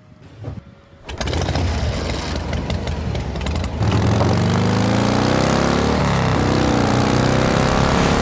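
A small engine starts about a second in and runs. From about four seconds in it gets louder and revs up and down.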